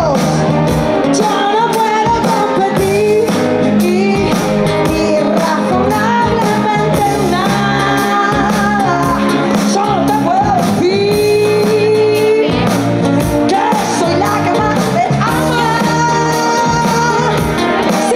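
Live band music: a woman singing a pop-rock song into a microphone over electric guitar and drums with a steady beat.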